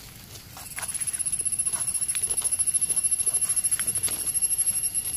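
A high-pitched insect trill with a rapid, even pulse of about eight beats a second starts about a second in and keeps going. Under it are a few faint ticks and scrapes of a knife cleaning soil off a white Amanita mushroom.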